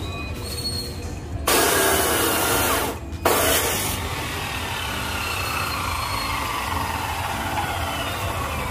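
Electric angle grinder running under load in two loud stretches, then released and winding down with a slowly falling whine.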